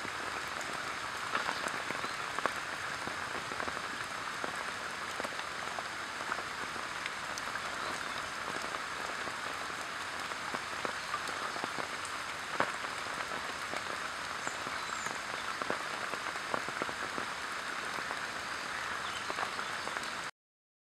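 Steady rain falling, with many scattered small drop hits; it stops abruptly near the end.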